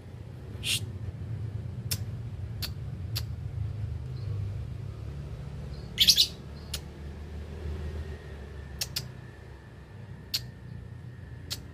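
Lovebirds giving short, sharp chirps at irregular intervals, the loudest a brief burst about six seconds in, over a low steady background rumble.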